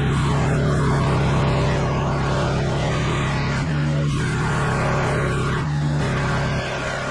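Petrol pressure washer running steadily under load, its engine's hum beneath the hiss of the high-pressure water spray.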